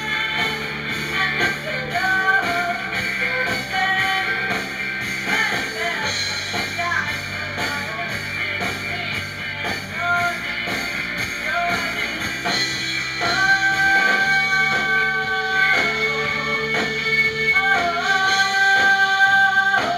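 Rock and roll song with singing, guitar and drums.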